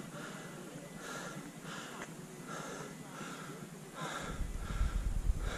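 Close, quick breathing near the microphone, a breath about every half second, as after a steep climb. About four seconds in, wind starts buffeting the microphone with a low rumble.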